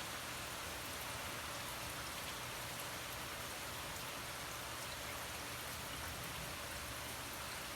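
Steady hiss of rain.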